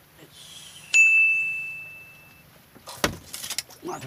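A small bite-alarm bell on a fishing rod rings once about a second in, a single clear ding that fades over about a second and a half, the sign of a fish taking the bait. About three seconds in come a few clicks and knocks as the rod is taken from its holder.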